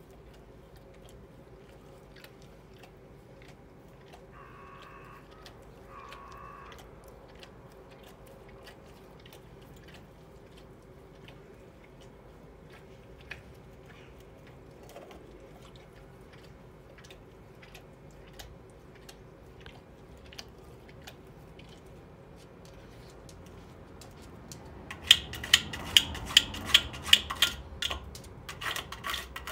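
Labrador licking and nosing at the ice frozen over its stainless steel water bowl. Faint licks and light taps give way near the end to a quick run of loud clinks and knocks of ice against the metal bowl.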